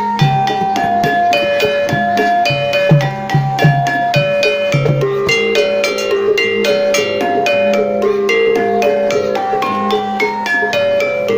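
Jaran kepang gamelan music: struck metal keys playing a quick stepped melody over a steady low tone, with low drum strokes through the first half.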